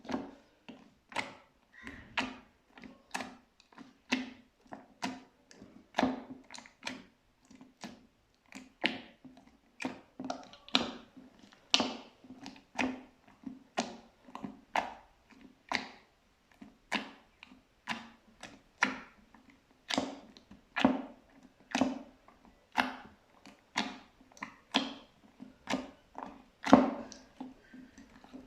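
Slime being pressed and squeezed by hand, making repeated wet squishing and popping sounds, with a stronger press about once a second and smaller ones in between.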